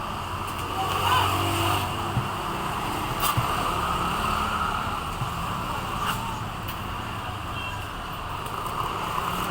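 Steady background noise with a low hum and a few short, sharp clicks.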